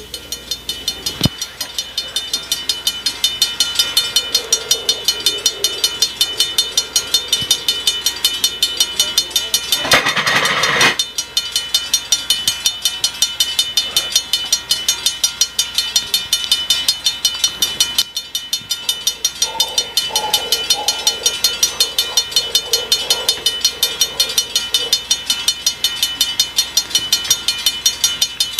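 Toy railroad crossing signal's electronic bell dinging in a rapid, even rhythm. A louder, noisier burst about ten seconds in lasts about a second.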